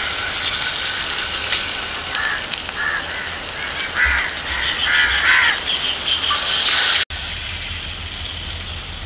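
Masala-coated king fish slices sizzling in hot sesame oil in a frying pan, a steady hiss that grows brighter just before the sound cuts off abruptly about seven seconds in. Birds call several times in the background.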